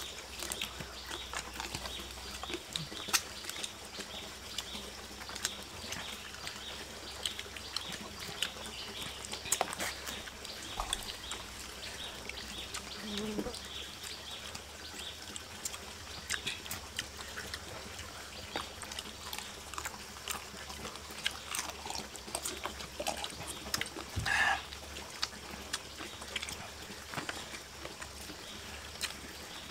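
People eating with their hands: close chewing and lip-smacking with many small clicks, over a steady trickle of running water.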